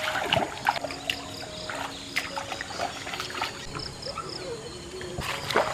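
Water splashing and trickling in short, irregular spurts, with scattered small knocks and clicks.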